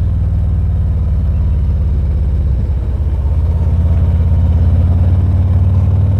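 2019 Harley-Davidson Ultra Limited's V-twin engine running with a steady low pulsing beat, heard through a lapel mic inside the rider's helmet. It dips briefly about halfway, then runs slightly louder.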